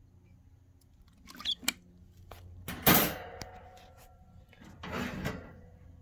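Handling noises at a wire bird cage: a few light rustles and clicks, then a sharp knock with a faint metallic ring about three seconds in, and a longer rustle near the end.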